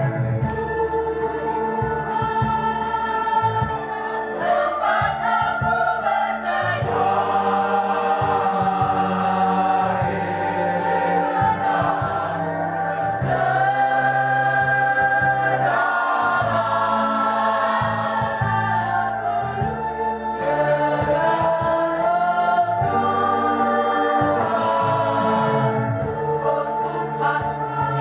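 Mixed youth choir of boys' and girls' voices singing together in held, slowly changing notes, over steady chords from an electronic organ.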